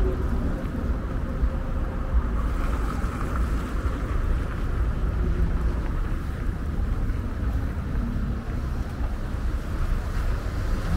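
Steady street traffic noise, with a low rumble from wind on the microphone.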